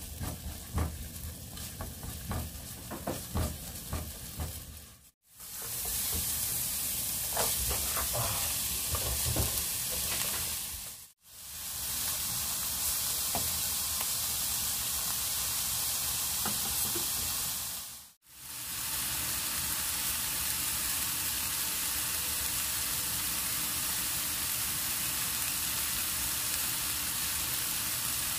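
Minced garlic and then chopped onion frying in oil in a nonstick frying pan, stirred with a silicone spatula. At first the spatula's scraping clicks stand out over a quieter sizzle. From about five seconds in there is a steady, louder sizzle, which drops out briefly three times.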